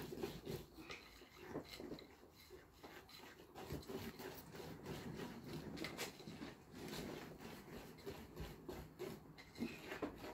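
Wire whisk beating thick cake batter in a bowl: a run of quick, irregular soft scraping strokes against the bowl.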